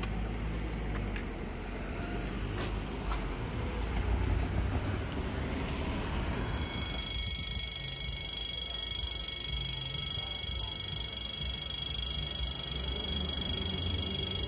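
A low rumble of a passing road vehicle, then a railway level crossing's electronic warning bell starts ringing abruptly about six and a half seconds in, a steady, rapidly pulsing high ring.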